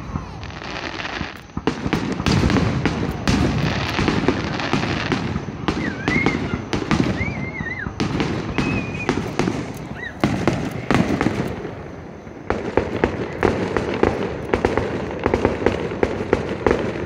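Fireworks going off: a dense string of bangs and crackles, with a few short wavering whistles around the middle. A faster run of sharp crackling starts about two-thirds of the way in.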